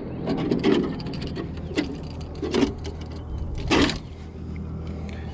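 A caught redfish being handled and unhooked aboard a small boat: a few short knocks and rattles from fish, lure and hands, over a steady low hum.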